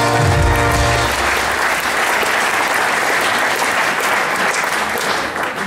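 Audience applauding after a verse, opening with a short held musical chord over deep bass.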